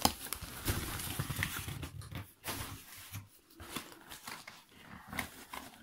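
Crumpled newspaper packing and a plastic plant bag rustling and crinkling as a potted cutting is lifted out of a cardboard box, with irregular handling clicks, busiest in the first couple of seconds.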